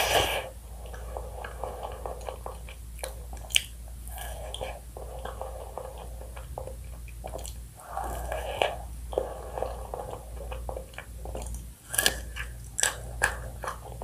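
Close-up chewing and biting of a chocolate-coated ice cream cone, wet mouth sounds broken by sharp crunches of the chocolate coating: one about three and a half seconds in and a quick run of them near the end.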